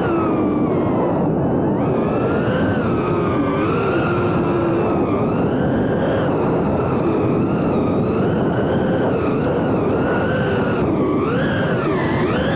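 FPV quadcopter's motors and propellers whining, the pitch wandering up and down with the throttle, with a sharper dip and climb near the end.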